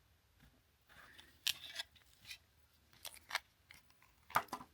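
A blind-box toy's packaging being opened by hand: a few short, crisp snips and crinkles. One comes about a second and a half in, a cluster follows around three seconds, and the loudest is near the end.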